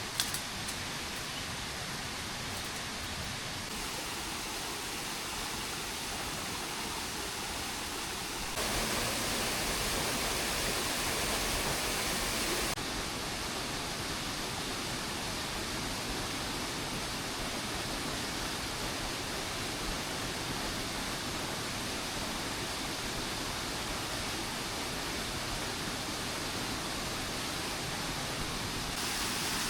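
Steady hiss of rain falling, with a few faint clicks at the very start. The rain is louder for a few seconds from about eight seconds in, then settles back.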